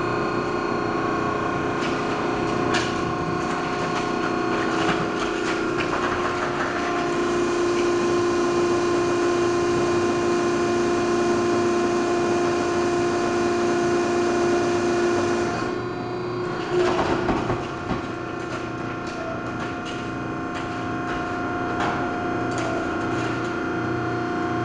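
2007 Harris V5-HD-15 baler running, with a steady hydraulic pump whine over a hum. About 16 seconds in the whine dips and there is a second or so of clanking, then the steady whine carries on.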